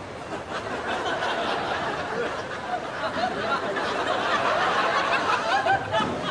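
Audience laughing at a comedy scene: many voices chuckling together, swelling louder in the second half.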